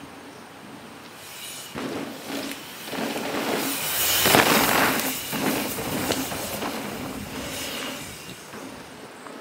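A mountain bike passing by on a flow trail: tyre noise and rattle that grow louder to a peak about four seconds in, then fade.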